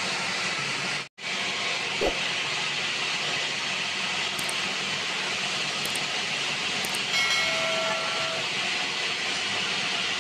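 Steady, loud hiss of stone-yard machinery running, with a single knock about two seconds in and a brief steady whistle-like tone around seven seconds in.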